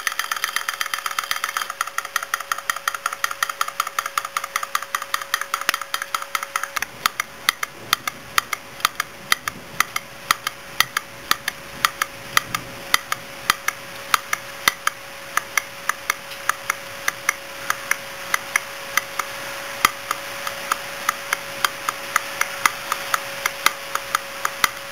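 Homemade laminar-flow thermoacoustic engine built from hard-drive parts running: its moving parts tick rapidly, and about six seconds in the ticking changes to a slower, steady tick about twice a second. A faint steady hum runs underneath.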